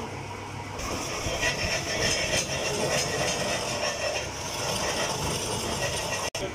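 Metal lathe running: a steady motor hum, joined about a second in by a louder, harsh metallic scraping and rattling with scattered clicks.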